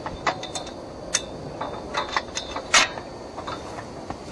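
Irregular metallic clicks and clinks from a simple water-well drilling rig's mechanism, some with a brief ring, the sharpest about two-thirds of the way through.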